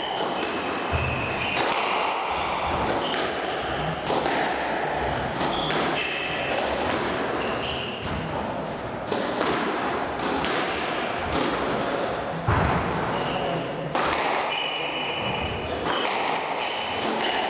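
A squash rally: the ball knocks sharply off rackets and the court walls at an irregular pace, about once a second, and the players' shoes squeak briefly on the wooden floor between shots.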